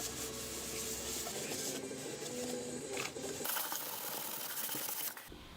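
A woodworking tool working on wood: a steady mechanical rasping and scraping that changes abruptly a couple of times.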